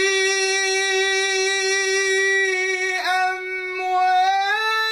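A male Quran reciter chanting in tajweed style, with no accompaniment or added effects. He holds one long steady note, breaks briefly about three seconds in, then carries on with the pitch rising slightly near the end.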